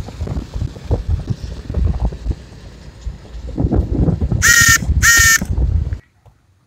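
Wind buffeting the microphone with low rumble while riding along, then two short honks of a vehicle horn in quick succession, each about half a second long. The sound cuts off suddenly just after the honks.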